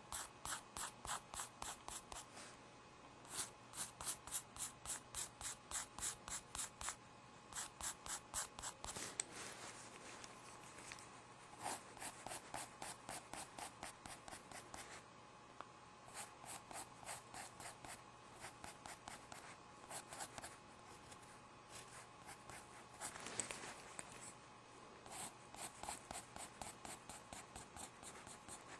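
Pen drawing short, quick strokes on paper, about four a second, in runs of a few seconds broken by brief pauses.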